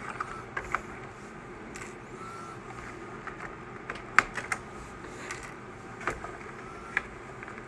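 Scattered light clicks and taps of small plastic and metal parts and tools being handled on a workbench, about a dozen irregular strikes with the sharpest few around four seconds in.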